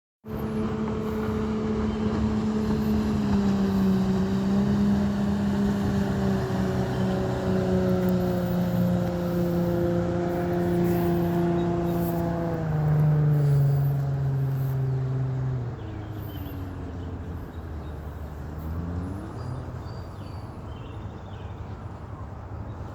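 Engine drone from a passing fishing boat: a steady hum whose pitch slowly sinks, then drops in level about two-thirds of the way through and fades to a quieter rumble.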